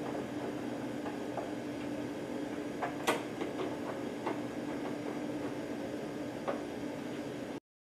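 A screwdriver tightening the door screws on the plastic enclosure of a Hach TU5400 sc turbidimeter: a few small, scattered clicks and scrapes over a steady low hum, the sharpest click about three seconds in. The sound cuts off just before the end.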